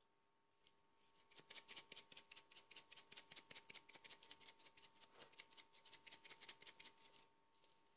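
Faint, fast rattling of a spice shaker shaken over the soup pot to season it with salt and black pepper, about six shakes a second for several seconds, then stopping.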